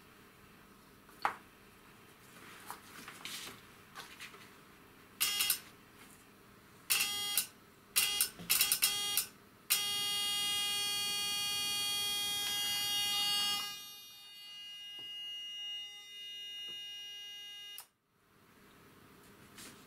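Electrical buzz from a vintage Smiths sensitive altimeter as its sensor circuit is powered with 26 V AC, which also drives the warning flag and, the owner suspects, the servo motor's primary. The buzz comes in short bursts a few times as power is applied, then holds steadily for about eight seconds, getting softer partway, and cuts off suddenly. A few clicks come before it.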